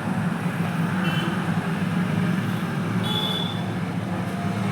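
Hero Passion Pro motorcycle's single-cylinder four-stroke engine running steadily. Two brief high-pitched chirps sound over it, about a second and about three seconds in.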